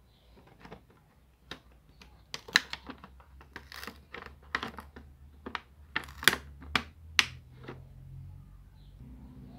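Clear plastic blister packaging of a carded miniature toy furniture set clicking and crackling as fingers press and poke at it: a dozen or so sharp, irregular clicks.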